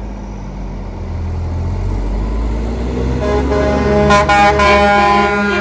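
Low rumble of semi-truck engines rolling past, then a truck's air horn sounding from about three seconds in, a chord of several tones that swells and holds loud to the end.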